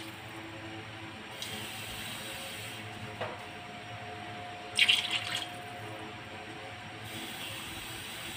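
Steady sound of water running, with a brief louder noise about five seconds in.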